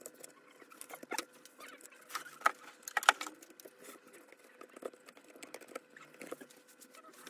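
Light clicks, taps and rustles of wires, the rubber mains cable and the jigsaw's plastic housing being handled as the wiring is laid back into the housing, the sharpest taps about three seconds in.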